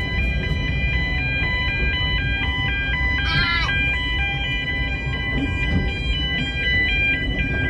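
Background music, a melody of held high notes, over the steady low rumble of a moving narrow-gauge train carriage. A brief high squeal comes about three seconds in.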